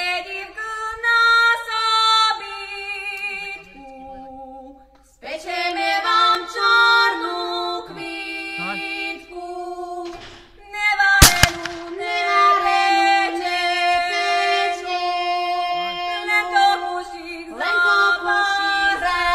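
Women's voices singing a Slovak folk song. About eleven seconds in, a sharp 12-bore shotgun shot cuts through the singing.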